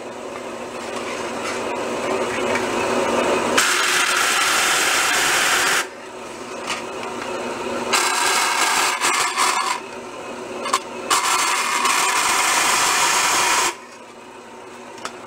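Vertical bandsaw cutting sheet metal: a rasping cut that builds over the first few seconds and stops abruptly about six seconds in, then a second cut from about eight seconds in until shortly before the end, with the saw running more quietly between cuts.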